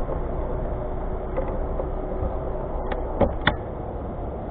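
Boat outboard motor idling at low speed, a steady low rumble, with a few sharp knocks about three seconds in.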